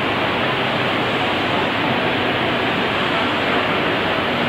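Steady din of a large crowded hall: many voices blended into an even noise, with no single voice standing out.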